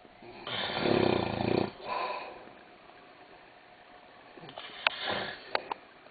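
A man snoring: one long, loud, rattling snore about half a second in, with a shorter breath right after it. A softer snore follows near the end, along with a few sharp clicks.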